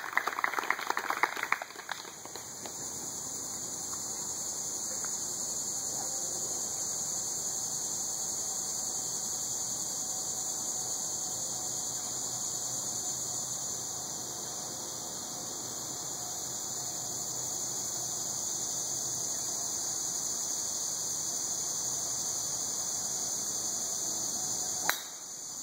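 Brief scattered applause at the start, then a steady high-pitched hiss, and near the end a single sharp crack of a driver's clubhead striking a golf ball off the tee.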